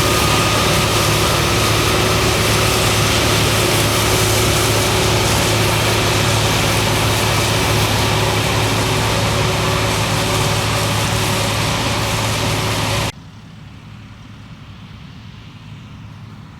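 Claas Lexion 480 combine harvester running while harvesting wheat: a loud, steady engine and threshing drone with a constant hum. About thirteen seconds in it cuts abruptly to a much fainter machine sound.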